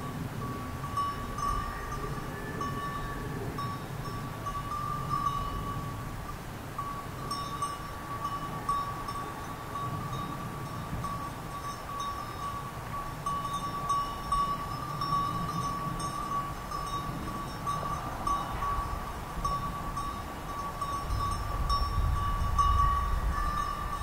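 Sheep bells of a grazing flock clinking and jingling almost without pause, one bell's tone ringing on steadily under irregular higher clinks.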